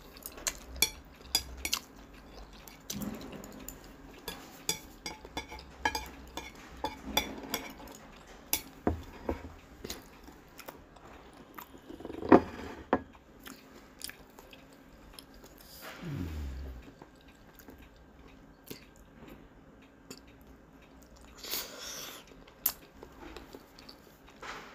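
Close-up mouth sounds of eating spicy instant noodles and a boiled egg: a run of wet, clicky chewing and slurping, with plastic chopsticks knocking against a ceramic plate and one sharp click about halfway through.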